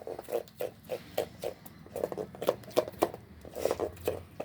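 Thick besan (gram-flour) batter being mixed in a bowl: a steady run of wet squelching strokes, about four a second.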